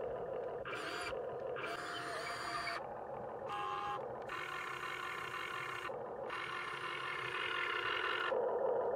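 Small electric motors of a radio-controlled model excavator running in stop-start spells, with a steady mechanical whine that shifts abruptly every second or so as different functions start and stop.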